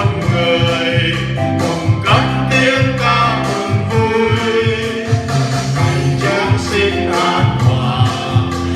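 A song with singing over instrumental backing with a steady beat, a Vietnamese Christmas song.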